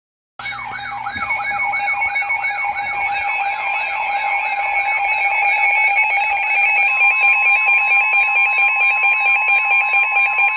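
Several electronic alarm tones sounding together, starting sharply about half a second in: a fast repeating falling siren sweep, about three a second, over steady and warbling tones. After about five seconds it turns into rapid pulsing beeps, about four a second, and another steady tone joins shortly after.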